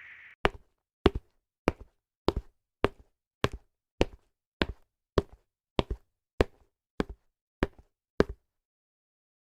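Anime sound effect: fourteen sharp, evenly spaced taps, about one every 0.6 seconds, each with a faint second tap just after it. The taps stop shortly after 8 seconds.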